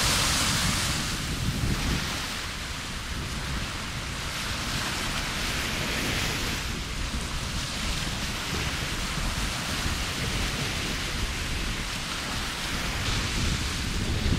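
Wind buffeting the microphone, a fluttering low rumble, over the steady hiss of sea waves washing on a beach.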